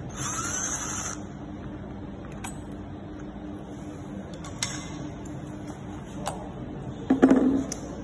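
Cordless drill driving a screw into a refrigerator's metal hinge bracket for about a second, its motor pitch rising as it runs. A few light clicks follow, then a louder knock with a short clatter near the end as the door is handled.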